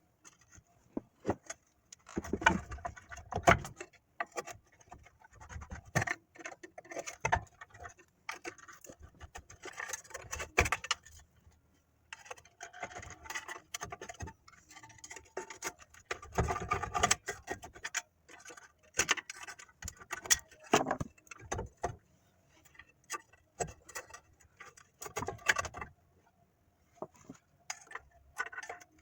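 Irregular metallic clicks, clinks and rattles of hand tools and drum-brake hardware being worked on, with a few louder knocks scattered through.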